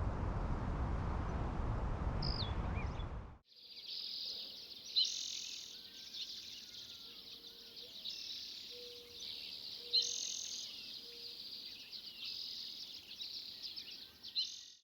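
A steady rush of noise with one brief bird chirp cuts off abruptly and is followed by a chorus of insects chirping in a high, pulsing band, with bird calls and a few faint, short, low calls mixed in.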